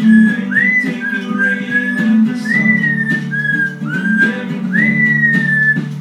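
Lilac-crowned Amazon parrot whistling a run of clear notes, many starting with a quick upward slide and easing down, with a longer held note near the end, over acoustic-guitar pop music.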